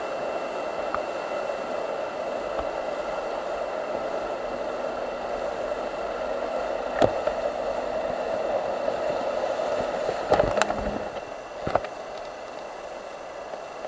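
Whitewater rapids rushing steadily, with a few sharp knocks and splashes about seven and ten seconds in. The rush gets quieter near the end.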